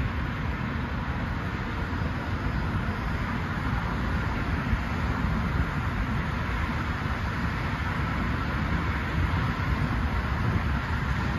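Steady road traffic on a busy multi-lane expressway: a continuous wash of tyre and engine noise with a low rumble, unbroken by pauses.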